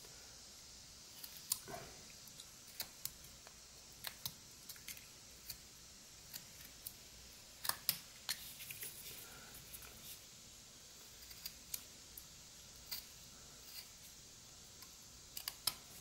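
Pocket knife blade whittling an eastern white pine block: scattered small, sharp clicks and snicks at irregular intervals as the blade slices into the wood and chips break free, a few bunched together about halfway through, over a faint hiss.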